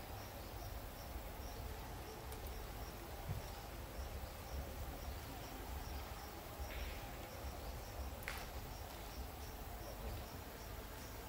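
An insect chirping steadily in short high pulses, about three a second, over a low outdoor rumble, with a single sharp click a little after eight seconds.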